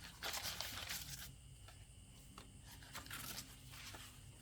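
Paper pages of a handmade junk journal rustling as they are turned and handled: a rustle about a second long near the start and a shorter one about three seconds in.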